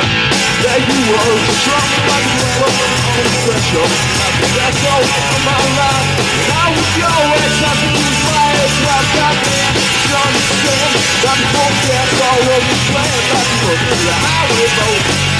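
Live rock band playing loud, with electric guitar, bass guitar and drums. The drums and cymbals fill in right at the start, after a stretch of guitar alone.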